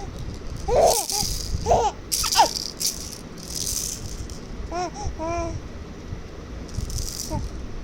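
A baby's rattle toy shaken in about four short bursts, mixed with the baby's short, high, babbling vocal sounds.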